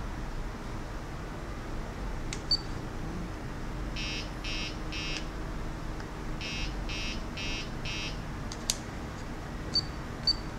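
Short electronic beeps, three in a row and then four more after a short pause, evenly paced at about two a second. Around them come a few sharp clicks of buttons pressed on an RC transmitter's grip.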